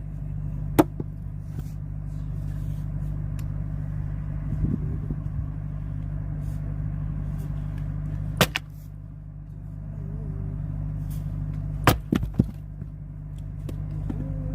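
Firewood being split: sharp cracks of wood struck and splitting, once a little under a second in, once past the middle, and three in quick succession near the end, over an engine running steadily.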